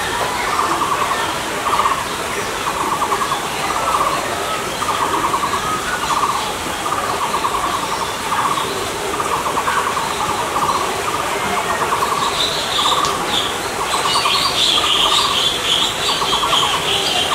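Bird calls: a short buzzy trill repeated about once a second, with a higher twittering joining in about twelve seconds in.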